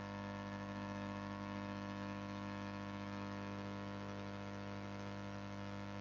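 Steady electrical hum and buzz with a faint hiss, holding constant in pitch and level with no other events.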